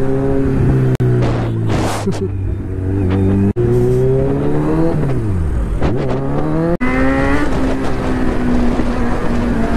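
Sport motorcycle's engine running under throttle at a mostly steady pitch. Its revs drop and then climb again about five seconds in. The sound breaks off abruptly a few times between edited clips.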